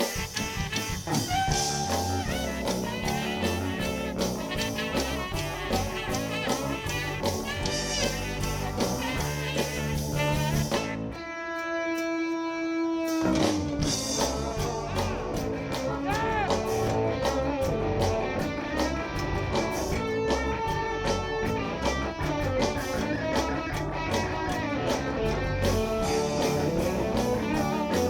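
Live ten-piece band playing an instrumental passage with drums, bass and guitar. About eleven seconds in, the band drops out for a couple of seconds, leaving one held note that bends down slightly before the full band comes back in.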